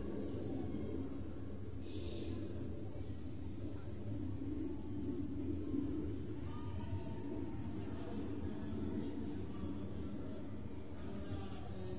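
Crickets trilling in a high, steady, fast-pulsing chorus over a low, even background rumble.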